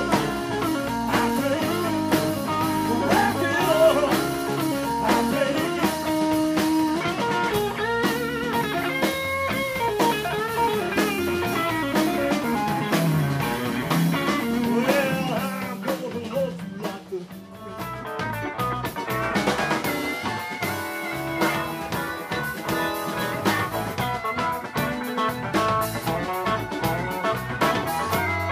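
Live blues band playing an instrumental break on electric guitar, electric bass and drum kit, with a brief drop in level a little past halfway.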